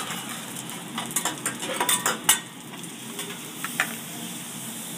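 Rice sizzling on a hibachi steel flat-top griddle while a metal spatula scrapes and clacks against the steel, the sharpest clack about two seconds in.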